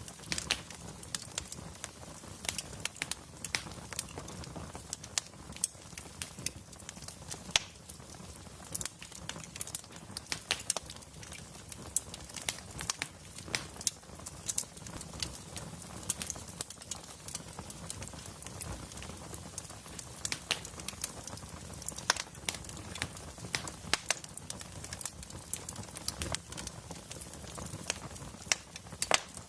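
Wood fire burning in a fireplace: steady crackling, with frequent irregular sharp pops over a low rumble.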